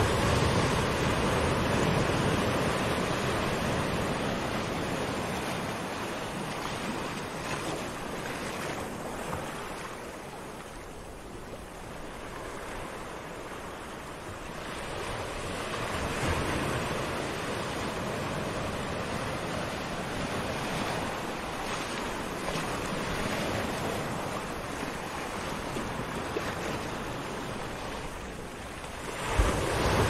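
Small waves washing up a sandy beach and drawing back, the surf swelling and fading over several seconds: quieter about a third of the way in, building again around the middle, and surging just before the end.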